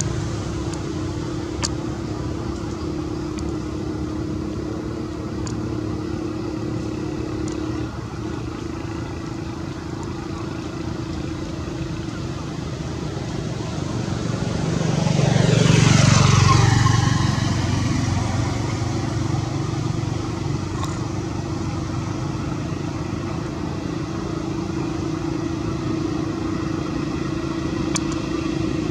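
Steady traffic noise with a constant low hum. About halfway through, a motor vehicle passes close by, growing louder and then fading as its pitch falls.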